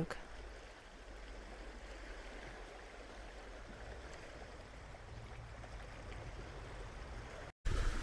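Faint, steady wash of small waves lapping over flat rocks on the seashore, with a low wind rumble underneath; it breaks off in a brief silent gap near the end.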